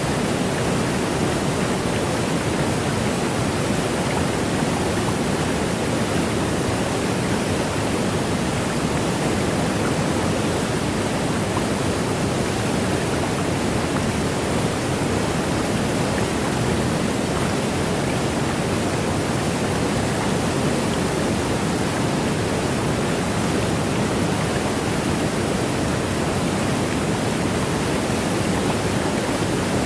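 Steady rushing of water at an even, loud level, with no break or change.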